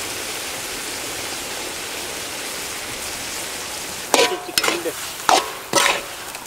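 Mutton pepper fry sizzling steadily in a large iron kadai, with hand-ground pepper powder just added. About four seconds in come four or so sharp metal clanks and scrapes of a ladle stirring the meat against the pan.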